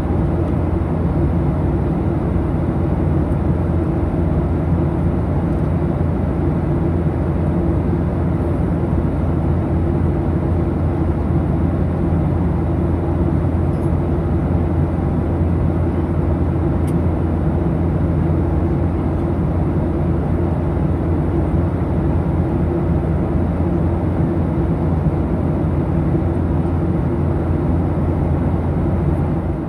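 Steady cabin noise of a Boeing 737 in flight, heard from a window seat beside the engine: an even drone of engine and rushing air, heaviest in the low range.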